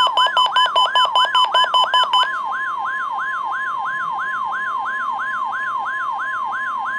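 Electronic alert tones: a steady tone near 1 kHz, typical of the NOAA Weather Radio 1050 Hz warning alarm, layered with a rising siren whoop that repeats about three times a second. A rapid pulsing beep runs over them and cuts off about two seconds in.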